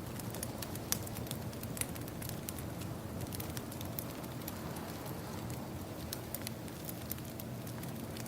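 Wood fire crackling with scattered sharp pops, over a steady wash of ocean waves.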